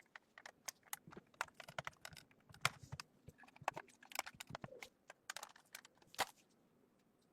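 A quick, irregular run of small clicks and taps, densest in the middle, with a sharper click about six seconds in.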